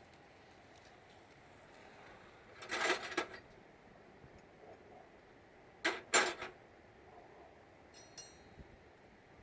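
Metal hand tools clinking and clattering: a short rattle about three seconds in, two sharp knocks about six seconds in, and a faint ringing tinkle near the end, as wrenches are sorted for the right size.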